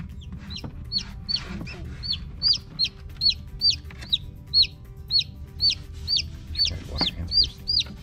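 Newly hatched chick peeping loudly and insistently: a run of short, high notes, each sliding sharply down in pitch, about three a second.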